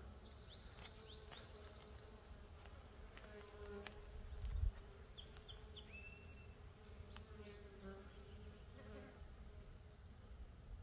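Mason bees buzzing faintly in flight around their nest holes drilled in firewood, a wavering hum that goes on throughout. There is one brief low thump about four and a half seconds in.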